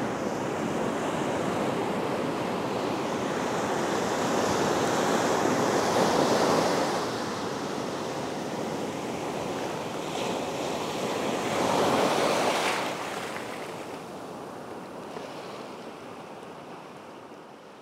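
Ocean surf washing onto the beach, swelling twice, about six and about twelve seconds in, then fading away near the end.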